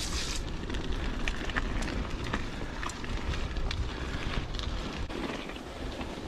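Huffy Good Vibrations klunker bicycle being ridden along a dirt trail: tyres rolling over the ground with scattered clicks and rattles from the bike, and wind rumbling on the microphone.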